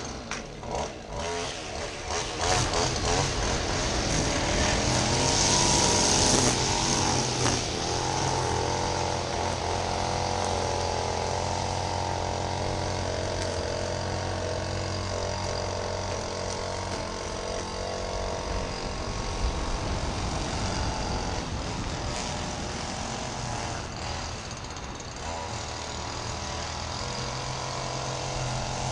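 Honda HRU216D self-propelled lawn mower's four-stroke engine pull-started, catching within the first couple of seconds, then running steadily while mowing grass.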